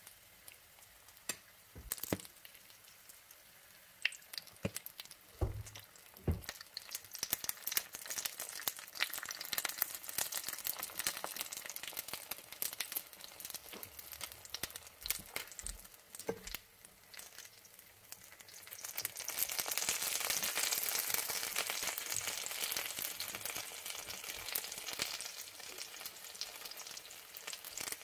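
Apple turon (wrapped apple rolls) frying in a pan of hot oil and caramel. Scattered pops and spits at first, building to a dense, steady sizzle about two-thirds of the way through.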